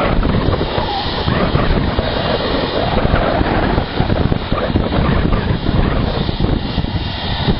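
Twin jet engines of a Cessna Citation business jet running as it taxis slowly, with wind buffeting the microphone.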